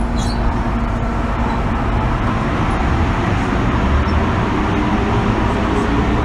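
Inside an MTR M-Train metro car running on the Kwun Tong Line: a steady rumble from the wheels on the rails and the car body, growing slightly louder toward the end.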